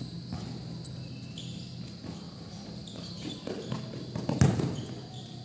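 A basketball bouncing on a concrete court, with one loud thud about four and a half seconds in, over a steady low hum.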